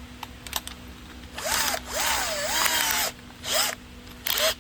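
Bosch GSB 120 cordless drill running at low speed in hammer mode. It runs for about a second and a half with its motor pitch rising and falling as the trigger is worked, then gives two short blips.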